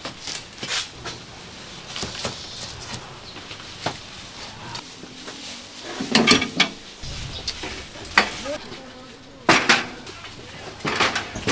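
Metal clanks and knocks as sheet-metal charcoal grill boxes and their wire grates are handled and set down on a table. The knocks are scattered, with a louder cluster about halfway through and another a few seconds later.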